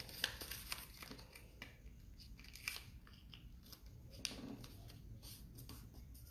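A sheet of paper being folded and creased by hand: faint, irregular crisp rustles and crackles as the folds are pressed flat.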